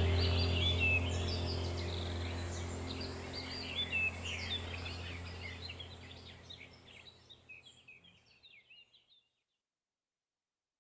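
Many small birds chirping over a low, steady ambient music drone, the whole mix fading out slowly to silence near the end.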